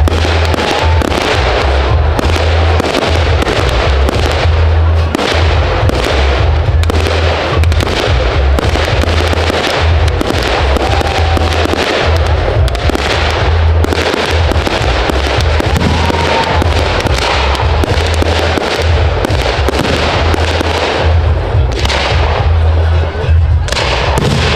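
Fireworks display: shells bursting in a continuous run of bangs and crackles over a constant deep rumble, with a few brief whistles.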